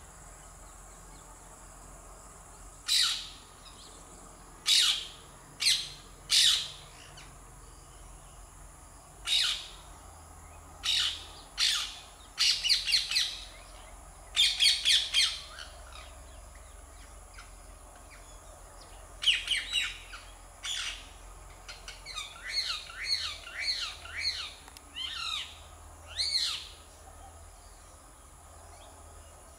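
Rose-ringed parakeet calling: loud, harsh shrieks, single at first, then in quick runs of several notes and a late series of shorter calls.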